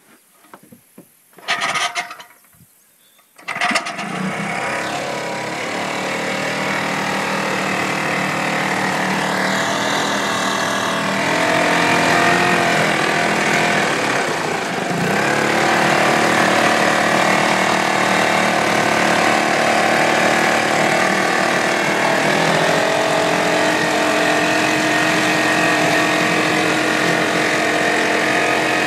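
Wards 7 hp outboard motor, an Eska-built unit with a Tecumseh two-stroke engine, being pull-started: a short burst about a second and a half in, then it catches about three and a half seconds in and runs steadily, a little louder from about twelve seconds on.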